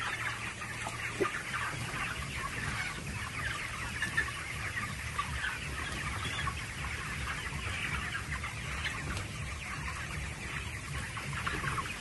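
A large flock of broiler chickens cheeping and clucking continuously, many birds at once, over a steady low hum.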